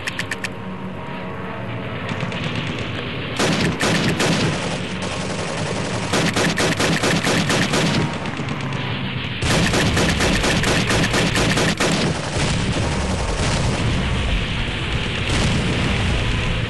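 Paintball markers firing rapid strings of shots in four loud bursts, over a steady background of shooting.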